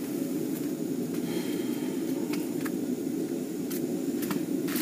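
Steady low rushing noise, with a few faint light clicks near the end.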